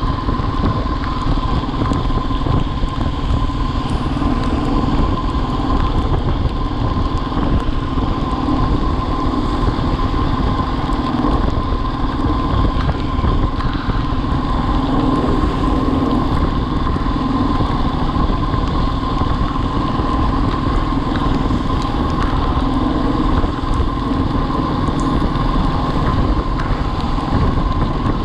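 Motorcycle riding along at steady speed, its engine running evenly under a steady rush of wind noise.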